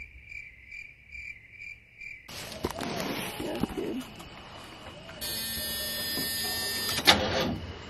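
High, even chirping, about three chirps a second, for the first two seconds; then low voices, and from about five seconds a steady electrical buzz, with a sharp click near the end.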